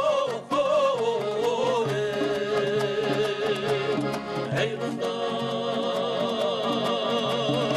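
Folk song with instrumental accompaniment: a voice holds long notes with vibrato.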